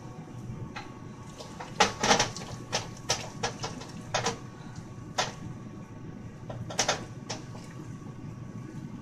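A spoon clinks and scrapes against a bowl at irregular moments as oil is stirred into melted chocolate, over a steady low hum.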